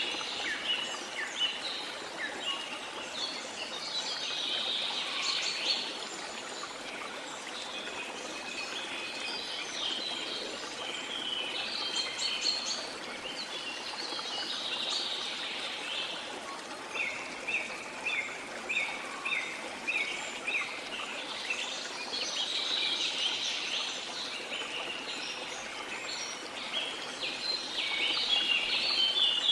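Small songbirds chirping and singing almost without a break over a steady wash of sea noise. Partway through, one bird repeats a short note about twice a second for several seconds.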